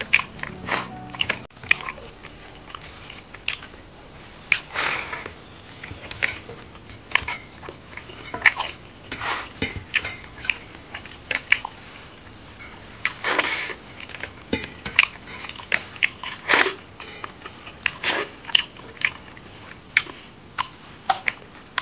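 Close-miked eating sounds: irregular chewing and mouth smacks as rice and pork curry are eaten by hand, with fingers scraping a metal plate. A raw carrot slice is bitten near the end.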